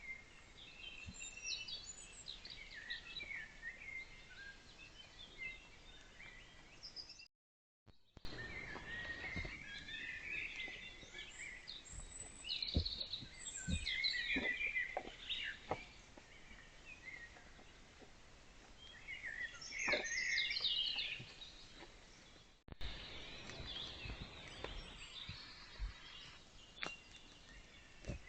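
Wild songbirds singing, several overlapping chirping phrases, loudest in two stretches in the middle and later on, with a few faint short knocks. The sound cuts out for under a second about seven seconds in and again briefly later, where trail-camera clips are joined.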